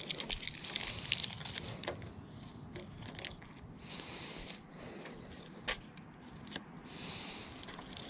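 Vinyl wrap strip and its paper backing being handled and peeled: faint crinkling and tearing, with scattered light ticks and two short hissing peels about four and seven seconds in.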